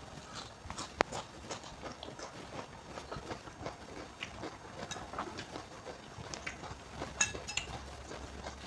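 Close-up mouth sounds of eating instant noodles with raw bean sprouts: a run of small wet chewing crunches and clicks. There is a sharp click about a second in and a short ringing clink near the end, like a utensil against the bowl.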